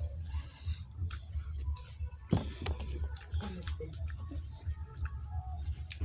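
Close-up wet eating sounds of thin khichuri and potato: soft smacking and squishing clicks scattered throughout, over a steady low hum.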